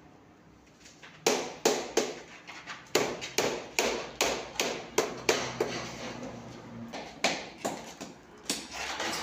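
Repeated sharp strikes, about two to three a second, while fresh concrete is compacted in a cylinder mould. The strikes start about a second in and pause briefly past the middle.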